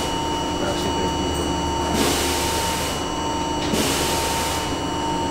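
Inside an R42 subway car running on the line: steady rumble of wheels on rail under a constant whine, with a hiss that swells and fades about every second and a half.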